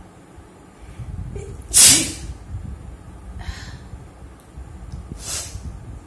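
A woman sneezes once, loudly and suddenly, about two seconds in. The sneeze is brought on by tickling inside her nostril. Two softer, shorter sniffs follow.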